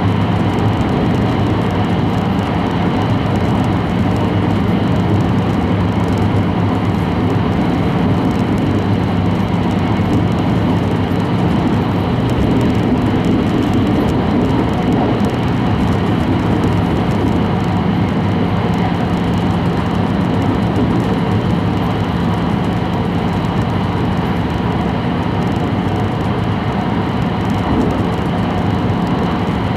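Steady cabin noise inside an E5 series Shinkansen travelling at speed: an even rumble of running noise with a constant low hum, unchanging throughout.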